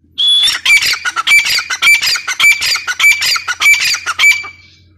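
Grey francolin calling loudly: a harsh phrase repeated about seven times in quick succession, starting with a short rising note and stopping about four and a half seconds in.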